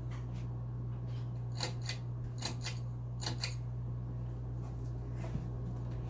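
Ceiling fan running with a steady low electric motor hum. Three quick pairs of sharp clicks come between about one and a half and three and a half seconds in.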